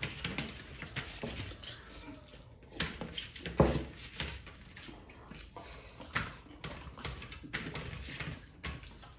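Hand-eating sounds: fingers squishing and scooping curry-soaked rice on steel platters, with scattered clicks and scrapes against the metal and mouth sounds of eating. One louder, sudden sound comes a little past three and a half seconds in.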